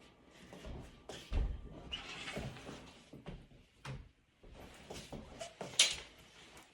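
Winter clothes and gear being handled while dressing: fabric rustling with a few knocks, a heavy thump about a second and a half in and a sharp knock near the end.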